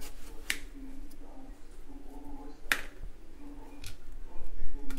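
A small kitchen knife cutting a mango on a plastic cutting board, clicking sharply against the board four times, loudest about halfway through.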